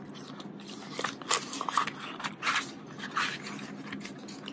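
Clear plastic zip pouch and Australian polymer banknotes crinkling and rustling as they are handled, in a string of short scratchy crinkles.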